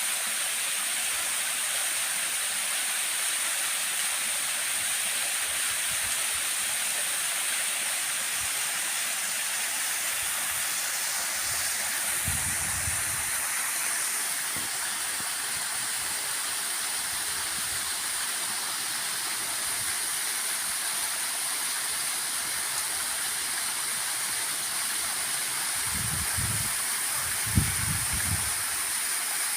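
Waterfall water rushing in a steady, hissing roar. There are brief low rumbles about halfway through and again near the end, and a single sharp click near the end.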